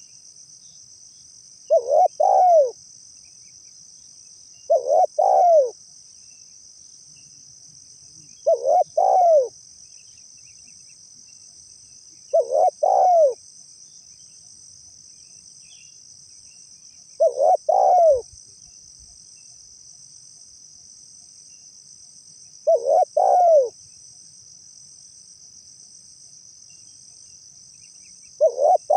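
Spotted dove cooing its three-note call, two short notes and a longer third, about seven times, every few seconds. A steady high-pitched insect sound runs underneath.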